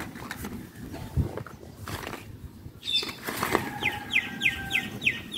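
Scattered knocks and rustling, with one low thump about a second in. In the second half a bird calls a quick run of short, falling chirps, about three a second.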